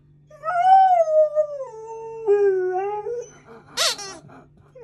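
Alaskan Malamute puppy howling, one long 'talking' call of about three seconds that starts high and slides down in pitch in steps. About four seconds in there is a short squeak from a rubber squeaky toy.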